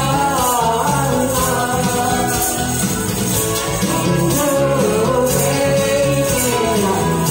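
A man singing into a microphone over a karaoke backing track with a steady beat, while a handheld tambourine jingles on the beat about once a second.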